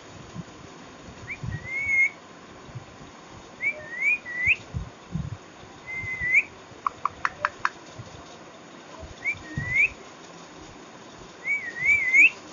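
Indian ringneck parrot whistling: five short phrases, each a quick up-and-down glide, spaced a few seconds apart, with a quick run of sharp clicks about seven seconds in.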